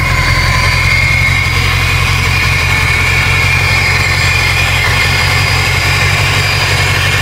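A built Subaru WRX STI's EJ257 flat-four idling with a lopey cam idle from its new camshafts, under a steady high whistle from its large Garrett turbocharger.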